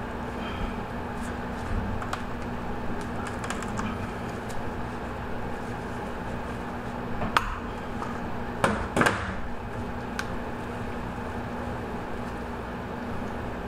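Clicks and cracks of hand cutters clipping through a largemouth bass's spine bones near the skull. The sharpest crack comes about seven seconds in and a few more come around nine seconds, over a steady room hum.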